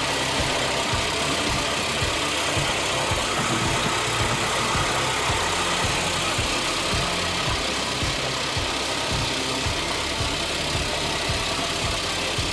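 A large engine-driven machine running steadily.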